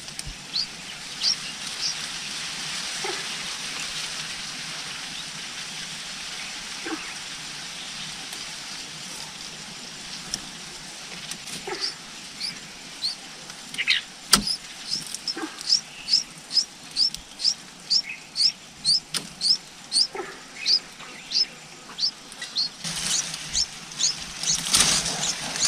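Nestling birds begging from the nest: a rapid series of short, high, squeaky chirps, about two to three a second. They fall mostly quiet for several seconds and start up steadily again about eleven seconds in. There is a single sharp tap about fourteen seconds in and a burst of leaf rustling near the end.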